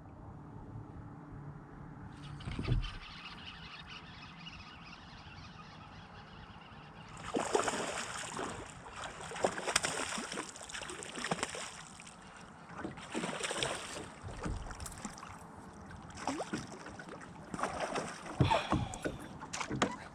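Water splashing in irregular bursts, the sound of a hooked bass thrashing at the surface beside the boat, with a dull thump about three seconds in.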